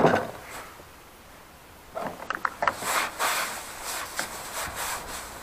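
Handling noise of a plastic shark-fin antenna cover being lifted and worked over a car roof: irregular rustling and scraping with small clicks, starting about two seconds in after a short quiet stretch.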